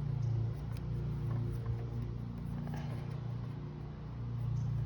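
Steady low mechanical hum from a running motor or machine, several pitches wavering slightly.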